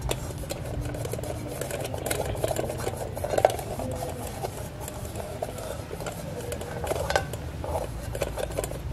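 Fingers rubbing and pressing an adhesive foil patch down onto the inside of a metal pot to seal a hole: a continuous scratchy rubbing with small ticks against the metal, one sharper tick about three and a half seconds in.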